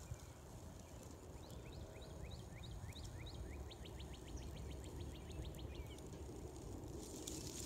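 A small bird singing faintly: a series of short slurred notes about three a second, then a fast, even trill about eight notes a second that stops near the end. A low wind rumble runs underneath.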